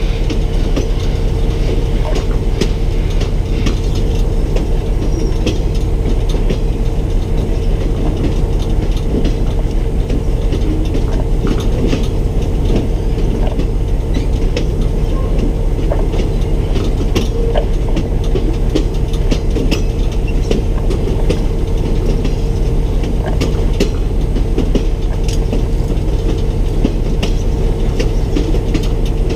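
Excursion train rolling along the track: a steady, loud rumble with a constant low tone and scattered clicks from the wheels over the rails.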